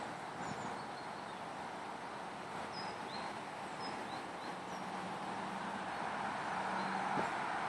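Small birds chirping in short, high calls over a steady outdoor background rush, with a faint low hum in the second half.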